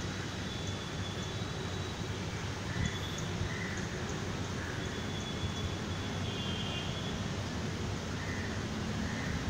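Steady rushing rumble of a river in flood, with faint short high chirps here and there.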